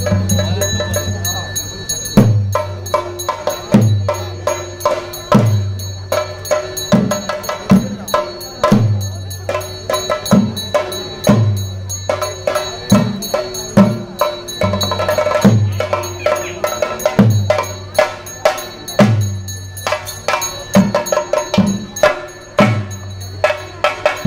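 Theyyam percussion: chenda drums beaten in fast, dense rolls with a deep drum stroke about every one and a half seconds, over ringing ilathalam cymbals.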